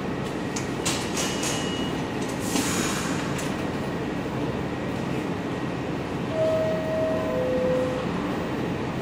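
New York subway train rumbling steadily in the station, with short high hissing bursts in the first few seconds. About six seconds in come two held tones, the second lower than the first.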